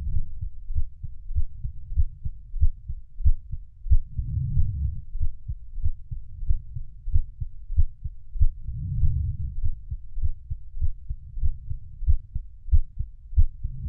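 Heartbeat sound: a steady, regular run of low thumps, with a longer low swell about every four and a half seconds.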